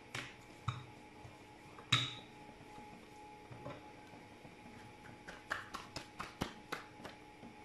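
Wooden rolling pin knocking and clicking against the countertop while roti dough is rolled out and moved: a few separate sharp knocks, the loudest about two seconds in, then a quick run of lighter clicks near the end.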